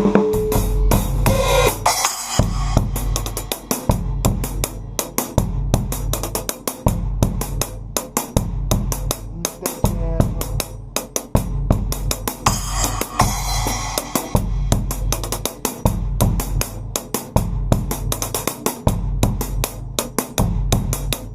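Acoustic drum kit played unmiked in a fast, steady groove, with hi-hat and cymbal strokes over bass drum, heard along with a recorded backing track carrying a bass line.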